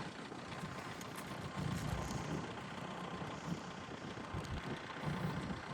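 Caterpillar 420D IT backhoe loader's diesel engine idling steadily with a low rumble.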